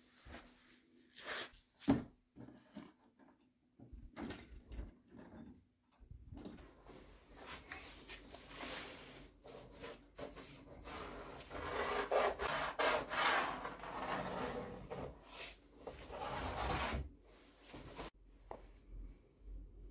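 Cardboard templates being handled and slid across a plywood tabletop: a few light knocks first, then a long stretch of rubbing and scraping that grows loudest past the middle and stops shortly before the end.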